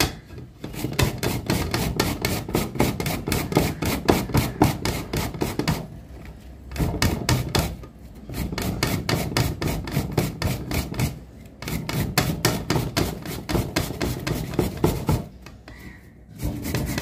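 Taro corm being grated by hand on the large holes of a flat stainless-steel grater set in a ceramic bowl: quick, rhythmic scraping strokes, about four a second, in runs broken by brief pauses.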